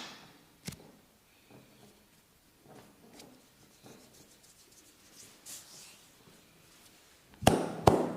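Massage slaps and smacks on bare skin: a sharp smack at the start and a lighter one just after, soft rubbing and rustling in between, then two loud smacks in quick succession near the end.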